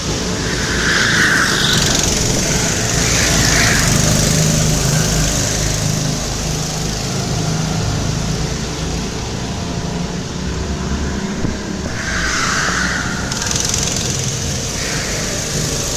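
Car engine running under load while driving, misfiring and very low on power, with a ragged low rumble.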